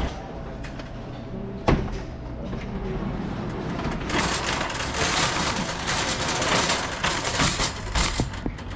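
Shopping cart rolling and rattling as it is pushed, with one sharp knock about two seconds in. From about four seconds in, a louder rushing noise full of quick rattles sets in as the cart rolls out onto concrete.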